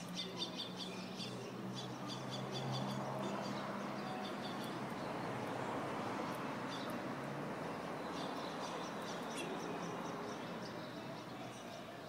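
Small birds chirping in quick runs of short, high chirps, at the start and again about eight seconds in, over a low hum and a broad rushing noise that swells through the middle and fades.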